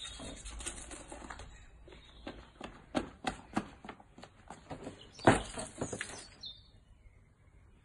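Light footsteps and scuffs on wet stone paving, then a louder slosh about five seconds in as a two-stick, string-loop giant bubble wand is dipped into a plastic tub of soapy water. Faint bird chirps behind.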